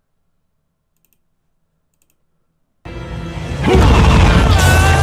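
Near silence with a couple of faint clicks, then, a little under three seconds in, a film soundtrack cuts in loud: music over a deep rumble, with wavering, sliding tones.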